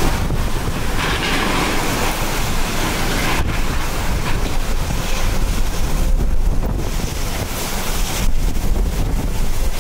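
Category 4 hurricane winds blowing hard and buffeting the microphone in a loud, continuous rush that swells and eases with the gusts.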